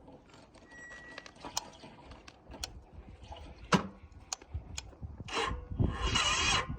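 A run of sharp clicks, then two short bursts of cranking near the end, the second longer and louder, as the starter turns over a 2009 Yamaha V Star 950 that won't start.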